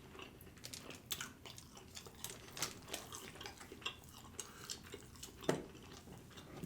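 Close-miked chewing of barbecued meat: soft, wet mouth clicks and smacks, with one louder low sound about five and a half seconds in.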